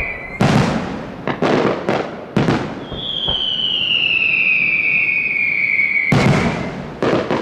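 Aerial fireworks: a quick run of sharp bangs, then a shrill whistle gliding down in pitch for about three seconds, then more bangs as the next shells burst.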